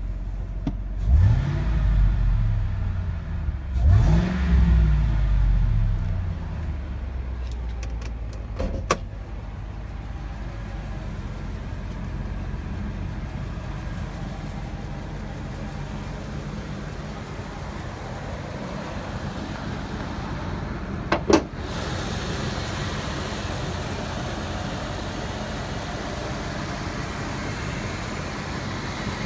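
Ford Lightning SVT's supercharged 5.4-litre V8 blipped twice in quick succession, then idling steadily. A sharp double knock comes about two-thirds of the way through.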